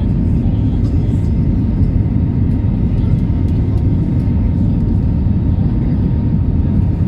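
Steady low rumble of an airliner's engines and airflow heard from inside the passenger cabin, with a faint thin tone.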